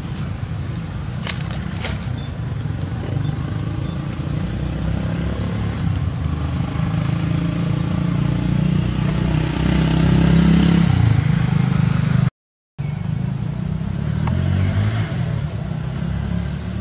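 A motor vehicle's engine running steadily with a low hum, growing louder and rising in pitch about ten seconds in. The sound cuts out completely for a moment about twelve seconds in.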